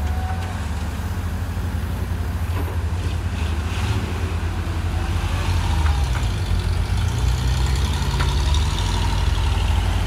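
Diesel engines of a JCB excavator and a Doosan DX160 wheeled excavator running steadily as they dig and load a dump truck. A few short knocks from the buckets and earth come in about halfway through.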